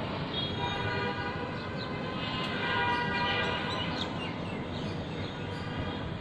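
A long horn held for several seconds, several pitches sounding together, over a steady bed of city traffic noise. It fades out about four seconds in.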